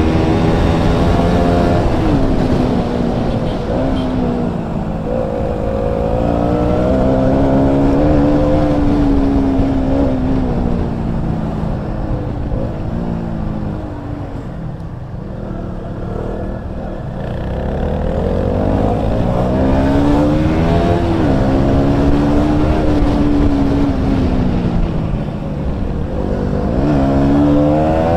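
KTM Duke 200 single-cylinder engine with an aftermarket Akrapovic exhaust, heard onboard while riding, revving up and down through the gears. It drops to low revs around the middle, then pulls hard again.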